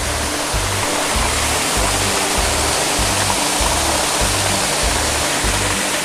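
Rush of a small waterfall pouring over rock, under background music with a regular bass beat.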